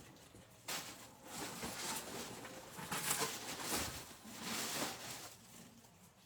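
Rustling and handling of an opened cardboard box of craft supplies as it is unpacked: a run of irregular scuffs and crinkles, busiest in the middle and dying away near the end.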